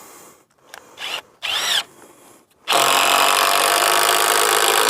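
Power drill driving a fixing diagonally through a timber rafter into the wall plate: two short blips of the trigger, then a steady run of about three seconds.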